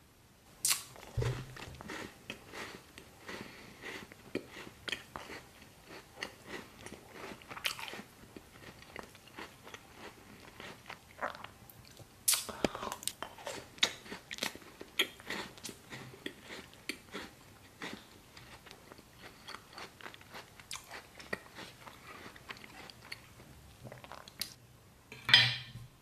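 Close-miked chewing and crunching of a chocolate-covered Twix bar: many small crisp crunches, with louder bites about a second in, about twelve seconds in, and the loudest just before the end.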